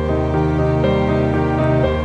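Slow, soft background music in a sad, new-age mood, with sustained notes over a deep held bass.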